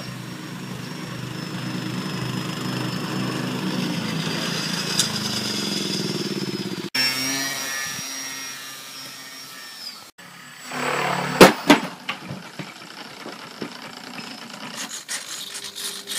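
Small electric motor and propeller of a pizza-box RC plane whining steadily in flight, cutting off about seven seconds in and again about ten seconds in. A few sharp knocks about eleven seconds in are the loudest sounds, and quick scraping strokes follow near the end.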